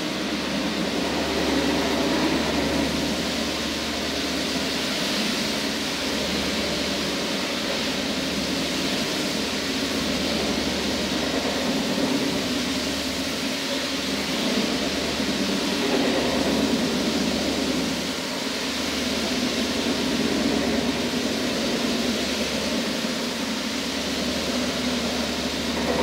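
Electric marble floor grinding machine running steadily, its grinding head working over a marble floor, with a constant low motor hum under a broad grinding hiss.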